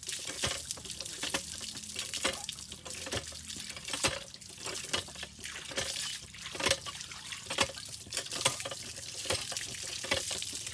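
Running water splashing, with irregular small clicks and splashes throughout.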